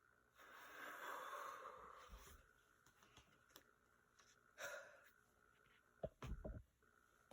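A person's long breath out, then a short breath about two seconds later, and a few soft low knocks near the end; otherwise near silence.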